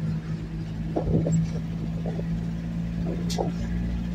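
Engine and road noise of a moving vehicle heard from inside its cabin: a steady low hum.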